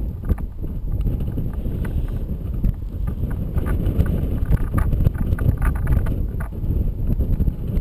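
Wind rushing over the microphone of a camera trailing on a line from a paraglider in flight, a heavy low rumble with frequent irregular light clicks and knocks.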